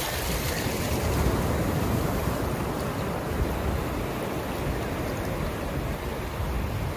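Shallow surf washing in over a sandy beach as a steady rush, with wind rumbling on the microphone.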